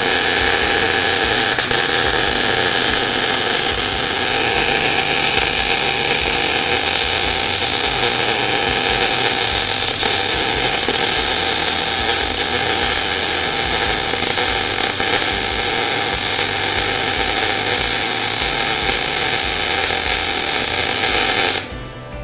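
Electric arc welder laying one continuous bead on a steel water heater tank: a steady crackling hiss that cuts off near the end.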